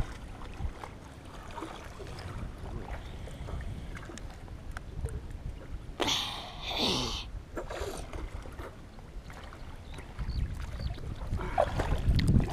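Pond water sloshing and lapping right at the microphone as a person wades neck-deep, over a steady low rumble. A louder burst of noise comes about six seconds in and lasts about a second and a half.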